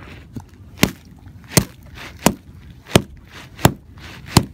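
Pond ice being chipped by hand with a tool, six hard, regular strikes about 0.7 s apart. The ice is nearly chipped through, with water seeping up into the slush.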